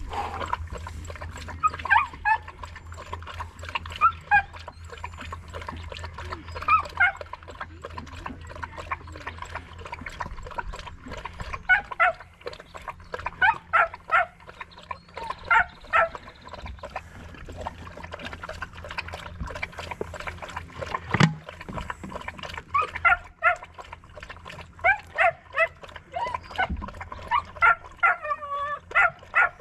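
Dog whining in short, high-pitched cries that bend in pitch, coming in clusters every second or two. A single sharp knock sounds about 21 seconds in.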